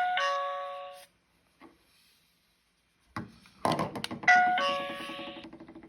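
Video doorbell camera powering up on fresh AA batteries, sounding two electronic chime tones that each fade over about a second: one at the start and a second a little past four seconds in. A sharp knock comes just before the second chime, and a faint low steady hum follows it.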